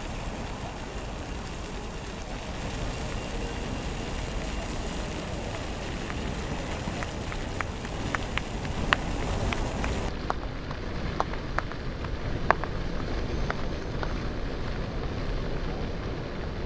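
City street ambience: a steady hum of traffic and the outdoor bustle, with a string of irregular sharp clicks through the middle.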